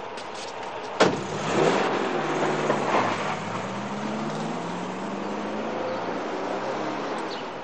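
A car door slams shut about a second in, then the car's engine revs up and the car pulls away, its engine pitch climbing and then settling as it drives off and slowly fades.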